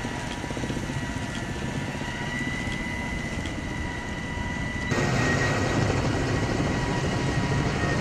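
Helicopter running overhead: a steady engine and rotor noise with a thin, steady high whine, getting louder about five seconds in.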